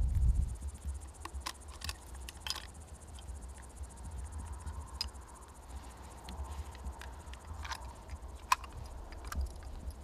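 Quiet outdoor ambience: a low wind rumble on the microphone, with a scattering of small sharp clicks and ticks.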